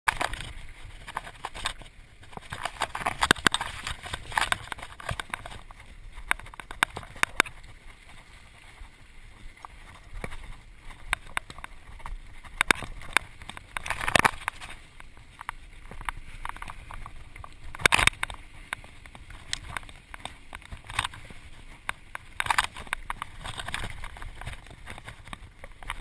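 Mountain bike riding fast over a rough dirt trail: steady tyre and wind noise, broken by frequent sharp clicks and rattles as the bike jolts over bumps. The hardest knocks come about fourteen and eighteen seconds in.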